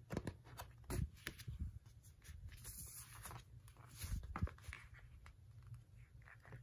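A magazine being handled and closed: paper rustling with a few light knocks and taps, the sharpest about a second in and again about four seconds in.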